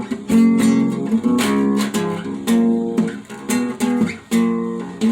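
Acoustic guitar strumming a blues-style chord pattern, with roughly one chord struck each second and left to ring between strums.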